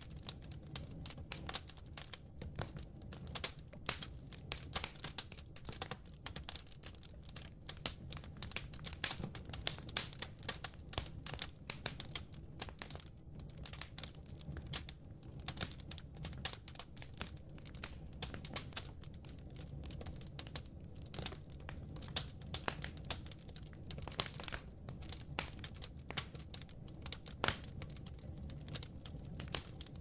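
Fire burning in a fireplace, crackling steadily with frequent small irregular pops and snaps over a low steady rumble.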